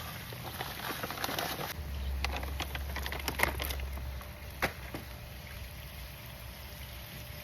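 Rustling and scraping from hands working plants and soil in a pot, with a run of sharp clicks and knocks in the middle, the loudest two about three and a half and four and a half seconds in.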